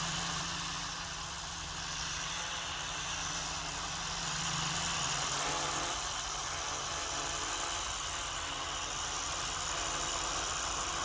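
Small foldable toy quadcopter (D6HW Phantom) hovering close by, its four propeller motors whirring steadily, the pitch shifting slightly now and then as it holds position.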